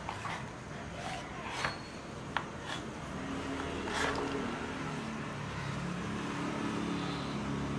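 Small kitchen knife cutting through a block of paneer on a wooden chopping board, with several sharp taps as the blade meets the board. A steady low hum runs underneath.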